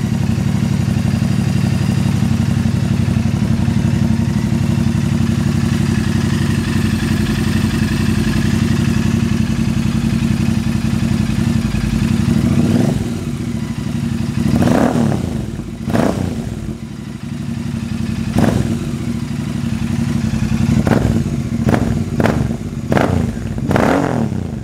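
Royal Enfield Super Meteor 650's 648 cc parallel-twin engine running through a new full-system stainless-steel exhaust with no dB killer fitted. It idles steadily at first, then from about halfway it is blipped with seven or eight quick throttle revs. It is very loud, loud enough that a dB killer will be needed.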